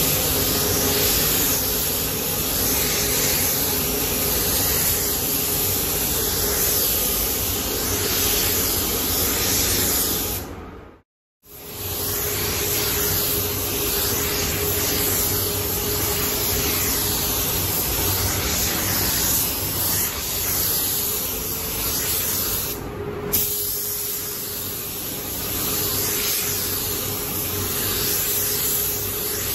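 Compressed-air spray gun hissing steadily as it sprays clear coat onto motorcycle fuel tanks, with a faint steady hum beneath. The hiss cuts out briefly about a third of the way through.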